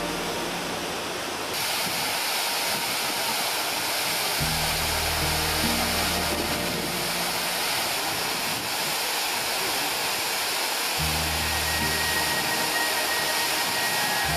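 Waterfall rushing steadily over rock steps, its noise growing louder about a second and a half in. Background music of low held notes plays underneath.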